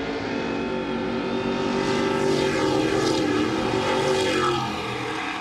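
Several Stadium Super Truck V8 engines running hard. The sound grows louder over the first couple of seconds as the trucks pass, with pitches gliding up and down, then fades toward the end.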